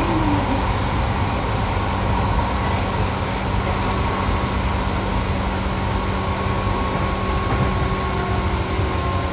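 Running sound of Seibu electric train set 263F heard from inside the car: a steady rumble of wheels on rail with an even hum from the running gear, easing off slightly near the end.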